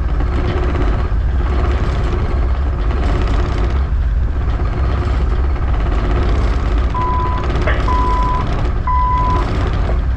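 Tugboat engines running with a heavy low drone in the wheelhouse while backing a barge. Near the end, three short beeps at one pitch come from the marine VHF radio, typical of emergency-services alert tones bleeding over onto the channel.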